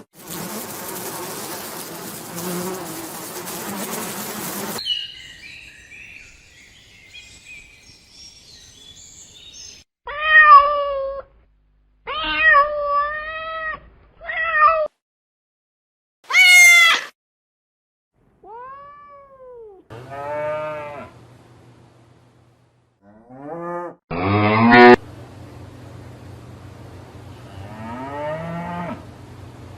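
A string of short animal calls cut one after another with brief silences between them, several of them cat meows with falling pitch in the middle of the run. A stretch of steady noise comes first.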